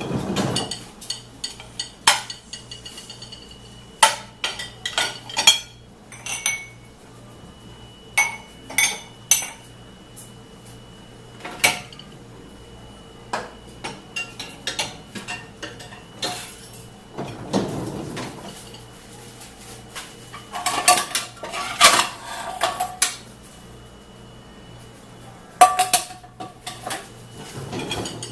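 Dishes and cutlery being handled, clinking and clattering in many separate knocks, some with a short ringing clink, in a few busier flurries.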